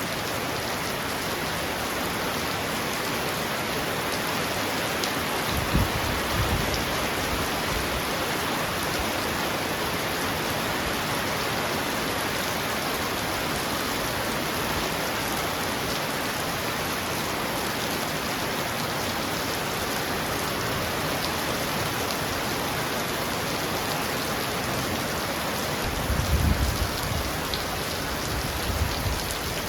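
Heavy rain pounding on a roof in a steady, even hiss, with two short low rumbles of distant thunder, one about six seconds in and another near the end.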